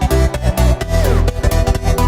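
Electronic dance music with a steady beat and a synth line that slides down in pitch about a second in.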